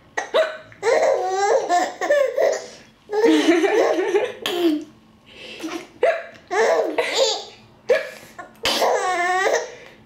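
Baby with the hiccups laughing in several bouts, the laughs broken up by short hiccups.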